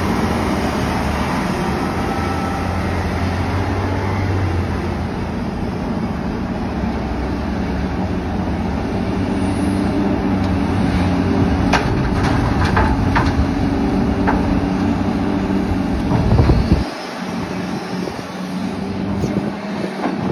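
Large hydraulic excavator's diesel engine running steadily under load as it digs and swings, with a cluster of sharp knocks about halfway through as the bucket dumps rock and dirt into an articulated dump truck's bed. The deep engine sound drops away suddenly near the end.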